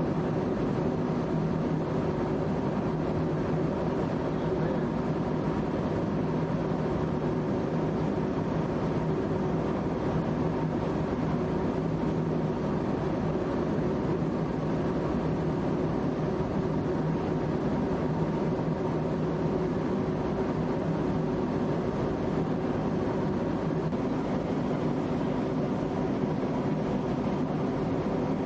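Steady drone of a jet aircraft heard from inside the cabin: engine and airflow noise at a constant level with a faint steady hum, unchanging throughout.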